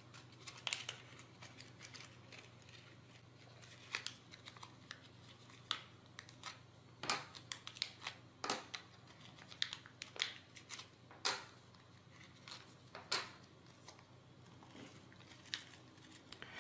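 Small plastic parts bag crinkling and rustling as fingers open it and dig in, with scattered light clicks of small aluminium blocks being picked out and set down on a table. The sounds come irregularly, a few at a time, and are faint.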